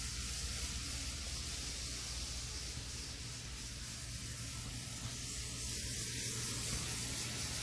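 Tomix 98647 N-scale bullet train running on its track: a steady hiss that is mostly wheel noise rather than a motor buzz.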